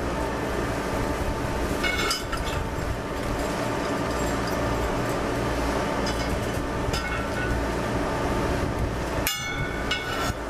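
Steel all-thread rods and washers clinking against a steel wheel rim as the rods are fitted through its bolt holes: a handful of sharp metallic clinks, the loudest near the end, over a steady low rumble.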